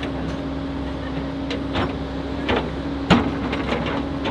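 Sany 450LC excavator's diesel engine running steadily with a constant hum, with several sharp clanks and knocks as its bucket works in the hole.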